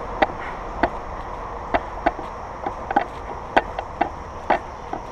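Irregular sharp clicks and knocks, some in pairs, every half second or so, from a hiker walking through woods with a loaded backpack: footsteps and the pack's gear knocking with each stride. A faint steady high hiss runs underneath.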